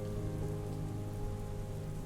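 Steady rain falling, with soft long held notes of an ambient music pad underneath.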